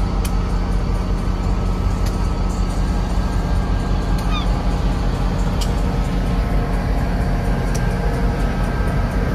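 Locomotive running steadily at idle: an even low engine rumble, with a few faint clicks and one brief high squeak about four seconds in.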